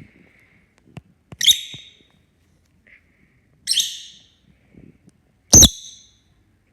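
Pet bird giving three short, sharp, high-pitched calls a couple of seconds apart, the last the loudest, with a few small clicks before the first.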